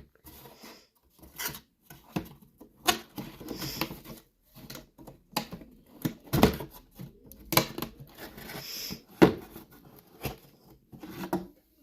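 A plastic toy truck and its cardboard box being handled: scattered clicks and knocks, with brief rustling of the packaging.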